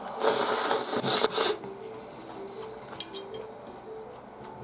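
A man slurping chilled ramen noodles (hiyashi chuka) off chopsticks: one long loud slurp followed by two short ones, all within the first second and a half.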